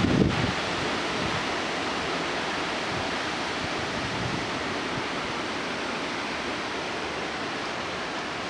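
High thunderstorm winds rushing steadily through trees as an even, loud hiss, with a brief buffet of wind on the microphone right at the start.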